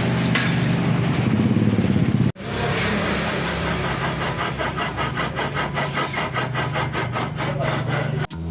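A car running with a steady low hum. After a sudden cut about two seconds in, there is a fast, even pulsing that speeds up toward the end.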